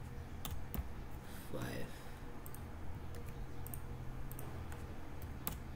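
Computer mouse clicks and keyboard taps, a handful of sharp separate clicks over a steady low hum. About a second and a half in there is one brief voice-like sound.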